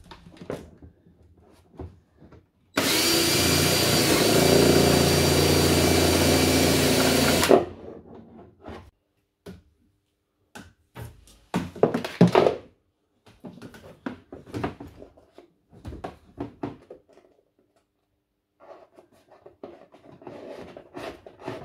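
Cordless drill running steadily for about five seconds, boring a hole through the plastic body of a toy ride-on car. It is followed by scattered knocks and handling clatter.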